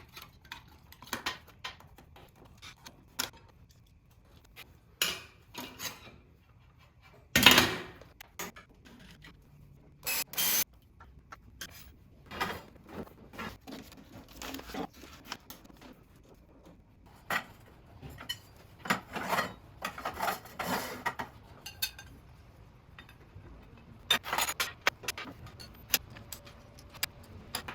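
Scattered metallic clinks, clatters and rubbing as metal parts and tools are handled in a workshop, with a louder knock about seven and a half seconds in and a short burst of noise near ten seconds.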